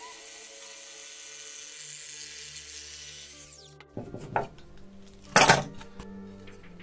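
Parkside cordless jigsaw cutting through a wooden board, its motor whine winding down and stopping a little over three seconds in, over background music. Then a knock and, shortly after, a short loud clatter as tools are set down on the workbench.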